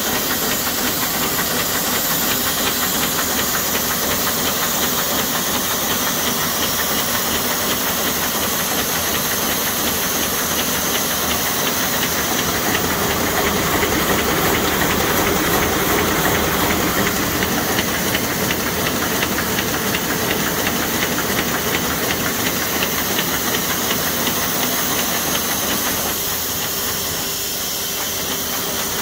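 Buhrs ITM BB700 envelope inserting machine running on test: a dense, fast mechanical clatter over a steady rushing noise. It grows louder for a few seconds in the middle and eases briefly near the end.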